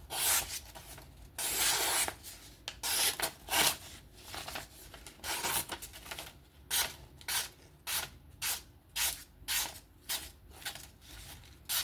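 Short rasping strokes of a freshly sharpened 14C steel knife blade being drawn across something, irregular at first and then a steady two or so a second.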